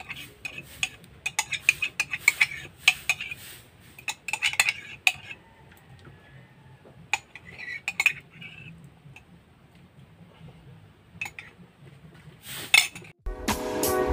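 A metal ladle clinking and scraping against a metal pan while stirring gelatin into water. The clinks come quickly for the first few seconds, then fewer and further apart. Music starts just before the end.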